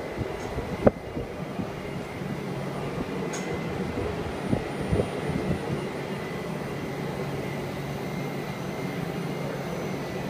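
Steady hum of running machinery with a faint high tone through it, broken by a sharp knock about a second in and two softer knocks around four and a half and five seconds.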